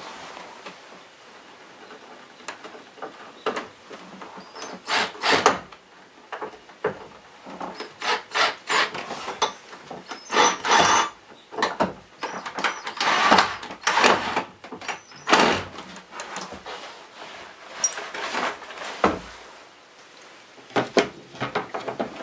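Irregular wooden knocks, scrapes and rubs from work on the underside of a wooden kitchen counter, in short bursts of a fraction of a second each, busiest between about five and sixteen seconds in.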